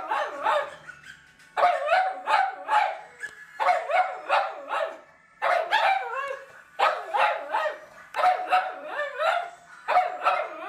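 Dogs barking in repeated runs of several quick barks, each run followed by a short gap, about every one to two seconds.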